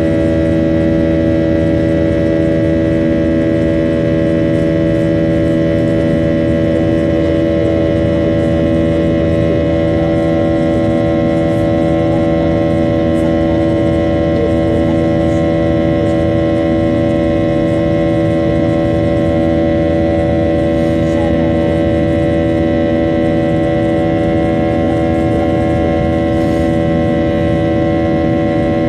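Boeing 737 jet engines at climb power, heard from inside the passenger cabin: a loud, steady drone of several held whining tones over a low rumble.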